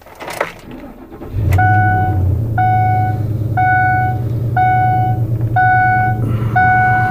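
A 2006 Ford F-150's 5.4-litre V8 catches about a second and a half in and settles into a steady idle, heard from inside the cab. Over it a dashboard warning chime dings once a second, six times.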